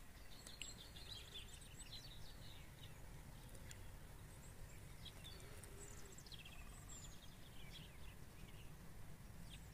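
Faint birdsong: small birds chirping and twittering in short phrases over a low, steady background rumble.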